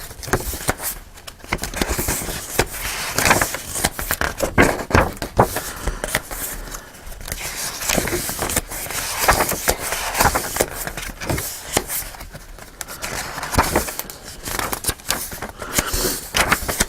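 Paper and cardstock pages of a thick handmade journal being turned and handled: irregular rustling and crackling with scraping.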